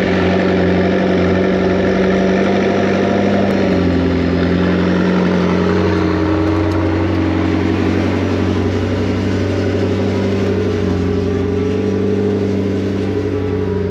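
McLaren 650S twin-turbo V8 idling steadily, its pitch settling slightly lower about four seconds in. It cuts off abruptly at the end.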